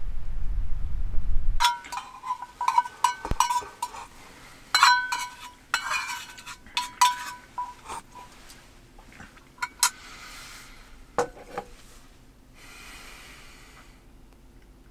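Wind rumbling on the microphone for about the first second and a half. Then a metal fork clinks and scrapes against a small metal dish during eating, with sharp ringing clinks that come thickly at first and then thin out.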